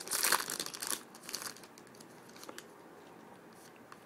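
Foil trading-card pack wrapper crinkling and rustling as it is handled, busiest in the first second, then a few faint rustles.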